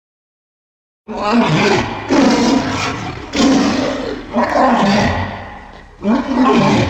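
Bigfoot creature sound effect layered from gorilla, pitched-down elephant and dinosaur sounds: after about a second of silence, about five loud bestial roars follow one after another, each rough and bending in pitch.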